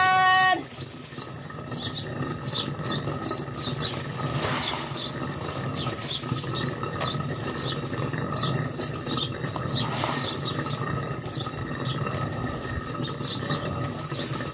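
Hand-turned stone quern (jaat) grinding dry chickpeas: a steady low rumble of stone turning on stone, with short high chirps scattered throughout.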